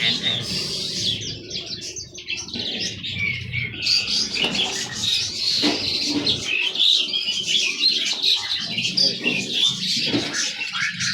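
Many birds chirping and twittering at once in a continuous dense chorus.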